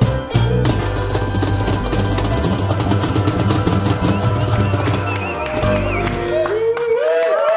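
Live acoustic guitar and cajón finishing a song: a held final chord with a fast roll on the cajón, ending about six and a half seconds in. Voices rise as it ends.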